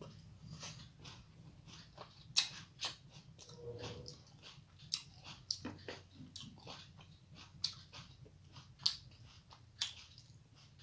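A person chewing and eating food by hand, with irregular wet mouth clicks and crunchy bites; one sharp crunch about two seconds in is the loudest.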